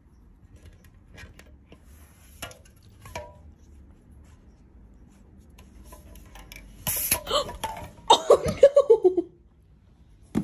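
Light taps and clinks of empty aluminium drink cans as a cat nudges them over. About seven seconds in there is a louder noisy burst, and a second later a short run of voice-like sounds falling in pitch.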